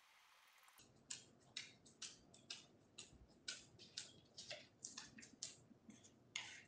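Faint clicks of a golden retriever's claws on a hardwood floor as it walks, about two a second.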